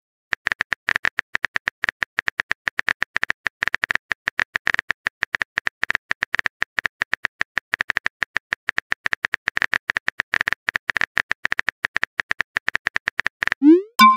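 Simulated phone-keyboard typing sound effect: rapid clicks, many a second, as a chat message is typed out. Near the end comes a short rising swoop.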